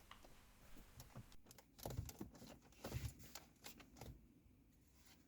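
Near silence: room tone with a few faint clicks or knocks, the clearest about two, three and four seconds in.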